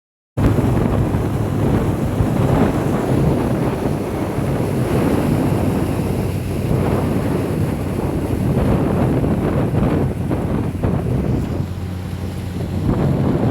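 Strong wind buffeting the microphone over open water, with a low steady hum underneath.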